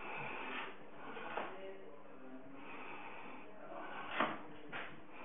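Indistinct voices murmuring in a small room, with two sharp knocks, one about a second and a half in and a louder one about four seconds in.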